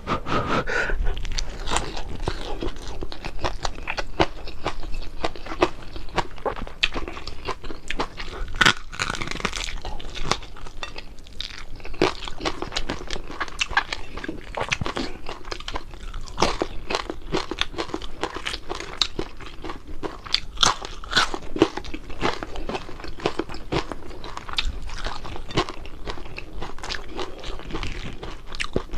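Close-up eating sounds: a person biting and chewing crispy fried fish with rice, with many irregular crunches throughout and one sharp crack about nine seconds in.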